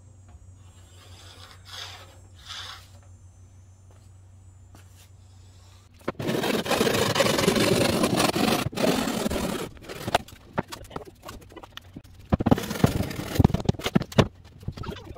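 A plywood sheet scraping across the wooden bed frame and another plywood sheet as it is pushed into place: one long, loud scrape starting about six seconds in. Near the end come shorter scrapes and several knocks as another sheet is handled and laid down.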